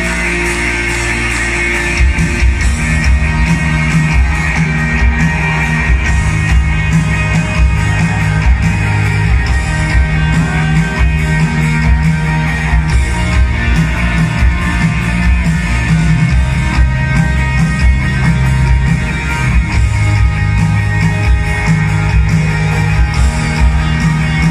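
Live rock band playing through a stadium sound system, heard from high in the stands. About two seconds in it gets louder, with much heavier bass.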